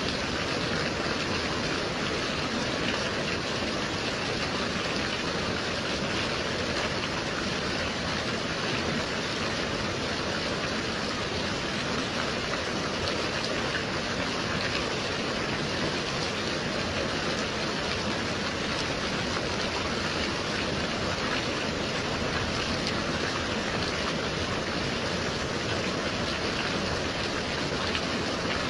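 Gentle rain falling steadily, an even hiss with no changes or separate drops standing out.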